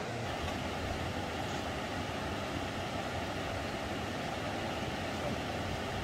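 Steady road and engine noise of a moving vehicle, an even rumble without breaks.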